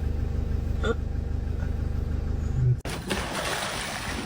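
A vehicle engine idling with a steady low rumble, then an abrupt cut about two-thirds of the way in to a broad, even hiss like wind or water noise.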